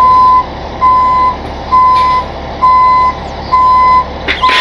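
Rollback tow truck's back-up alarm beeping as the truck reverses: a single steady tone, about half a second on and half off, roughly once a second, six times, with the truck's engine running low underneath.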